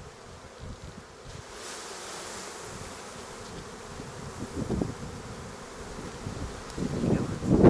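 Honeybee swarm buzzing around an open hive, with louder low rumbles near the end.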